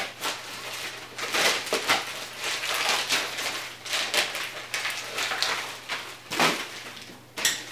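Packaging being pulled open and unwrapped by hand, crinkling and rustling in irregular bursts, with a sharper crackle near the end.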